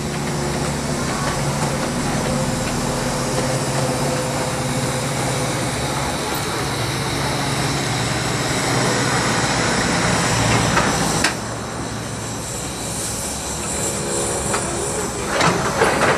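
Miniature railway train running into the station: a steady mechanical hum and the rumble of small wheels on the rails, growing louder as it comes past, then dropping suddenly about eleven seconds in. Near the end come a few sharp clicks and squeals from the wheels.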